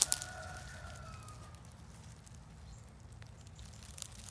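A couple of sharp clicks at the start, then a faint, thin dog whine sliding slowly downward for about a second and a half. Near the end come a few small rustles of dry leaves and twigs as a hand reaches in to a curled-up hedgehog.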